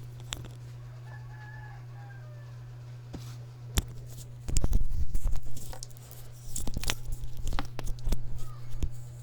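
Homemade slime being handled: a run of sticky clicks, pops and squelches, loudest about halfway through, over a steady low hum.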